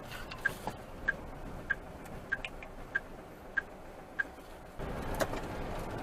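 Indicator flasher ticking in a truck cab, a sharp click about three times every two seconds over faint engine and road noise. About five seconds in, the ticking stops and louder steady engine and road noise takes over.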